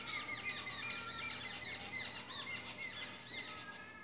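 Whiteboard marker squeaking against the board while a word is written, a rapid run of short high chirping squeaks that tails off near the end.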